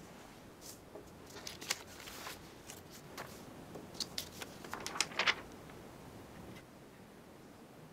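Faint, irregular rustling and light clicks over quiet room hiss, coming in two clusters, one around the second and a half mark and one around the fourth and fifth seconds.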